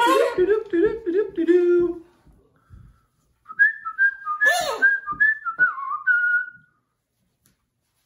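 A short run of low hummed or sung notes, then after a pause a whistled tune of several held notes stepping up and down, with one brief harsher sweep in the middle of the whistling.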